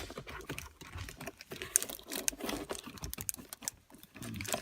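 Quick, irregular clicks and rustling throughout: handling noise of the hand-held camera as it is moved.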